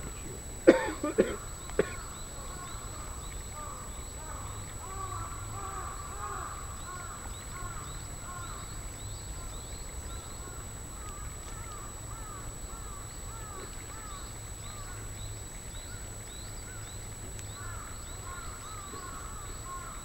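Three sharp knocks about a second in, then birds calling continually, many short repeated chirps, over a steady faint high whine.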